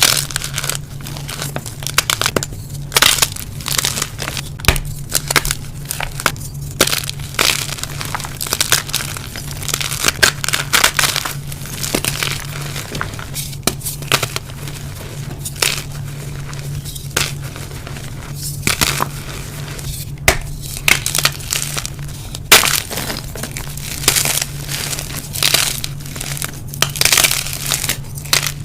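Blocks of dyed gym chalk being crushed and crumbled, a dense run of irregular dry crunches and crackles.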